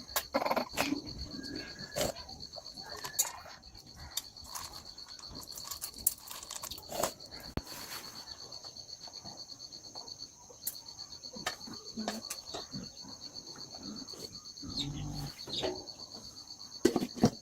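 Insects trilling in a steady, high, pulsing chorus, with scattered short clicks and knocks over it.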